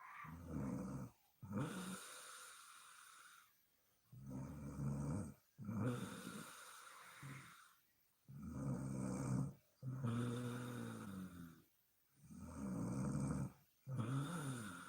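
A sleeping woman snoring steadily: every breath brings two low, pitched snores close together, about four breaths with short quiet pauses between them.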